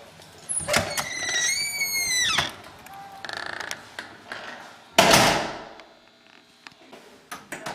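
A door fitted with a hydraulic door closer is opened with a few clicks and a high squeak. It then swings shut and closes with a single loud thud about five seconds in.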